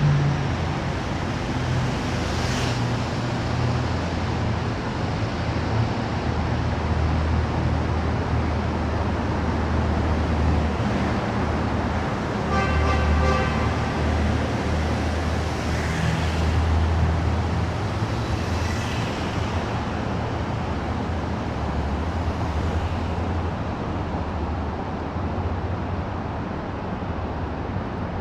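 Steady low rumble of passing road traffic. A short pitched tone sounds about twelve and a half seconds in.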